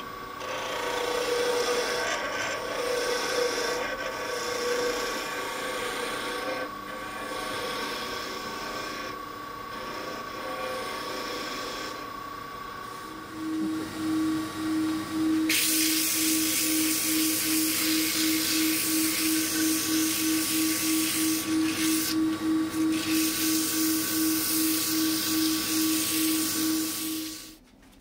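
Wood lathe spinning a turned stool leg, with a steady motor whine. For the first dozen seconds a turning tool scrapes and cuts the wood irregularly. After that comes a pulsing hum, about two pulses a second, with a hiss over it, and the sound cuts off abruptly near the end.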